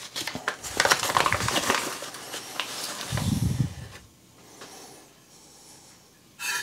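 Paper bag of cornmeal crinkling and rustling as cornmeal is shaken out of it onto a metal baking pan, with a dull low thump about three seconds in as the bag is put down, then quiet.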